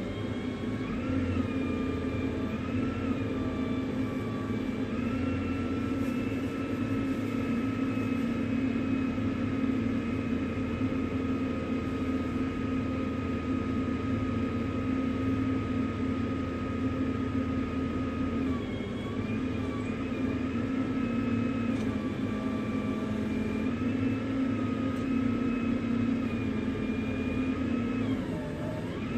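A tow truck's engine running steadily, with a whine that holds one pitch for long stretches and wavers or dips briefly now and then, most clearly near the end.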